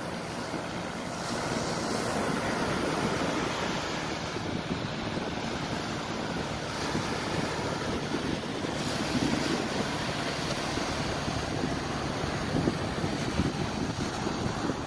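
Small waves of the Gulf of Mexico surf washing onto the beach, a steady rush with gentle swells, with wind buffeting the microphone.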